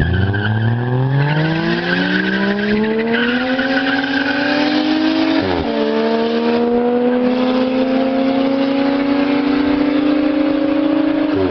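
Two Toyota sedans, a Mark II and a Chaser, launching from a standing start at full throttle: the engines climb steadily in pitch, with a gear change about five and a half seconds in and another near the end. A tyre squeal runs alongside for the first few seconds after the launch.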